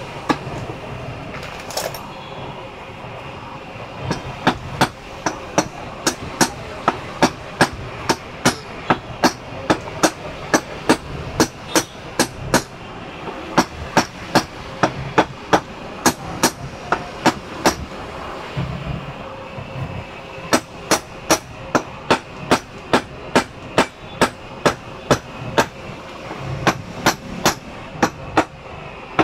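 Aluminium cylinder block of a Bajaj motorcycle engine being tapped down over its studs onto the crankcase with a handheld rod, seating it on its gasket. The sharp taps come about two to three a second in two long runs, with a short pause in between.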